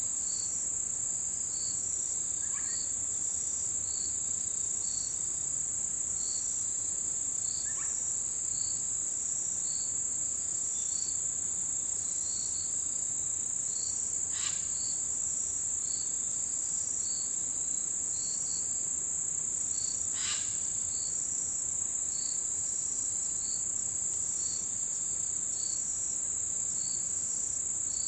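Autumn insects singing: one high, unbroken trill, with another insect chirping in an even rhythm of about one chirp a second. A few brief sharp calls stand out, two louder ones about halfway and two-thirds of the way through.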